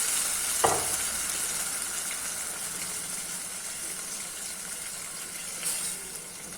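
Hot oil in a pan sizzling as a wet ground tomato, pepper and cumin paste cooks with fried shallots, the sizzle slowly fading as the paste cools the oil. There is a single knock about half a second in.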